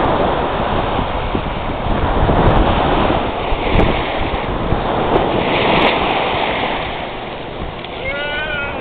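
Sea surf washing onto the shore in surging waves, with wind buffeting the microphone and a low rumble.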